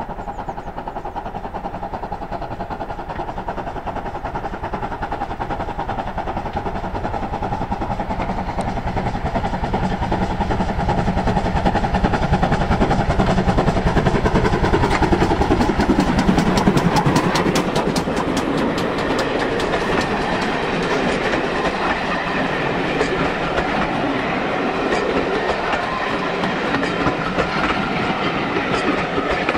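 GWR 2884 class 2-8-0 steam locomotive no 3850 approaching under steam and passing close by. Its sound grows louder to a peak a little past halfway, then the coaches roll past with a steady clickety-clack of wheels over the rail joints.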